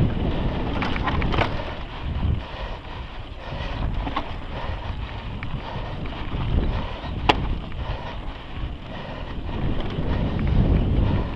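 Wind buffeting the microphone as a mountain bike rides fast down a rough dirt trail, with the bike rattling over the bumps. One sharp click about seven seconds in.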